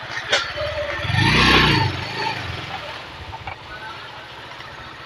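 Motorcycle engine idling, blipped once about a second in: the pitch rises and falls back to idle within a second.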